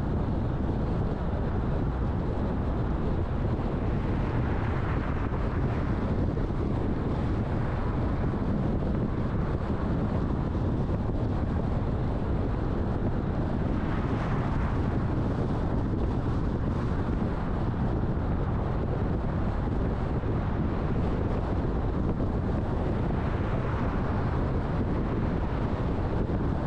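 Steady road and wind noise of a car being driven, a constant low rumble with three brief swells of hiss.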